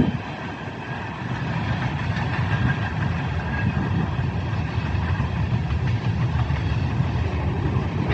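A train passing, with a steady rumble and faint high tones above it.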